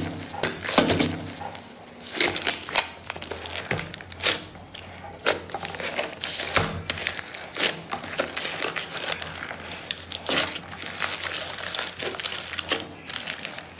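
Aluminium foil crinkling and crackling in irregular bursts as hands squeeze and knead foil-wrapped slime.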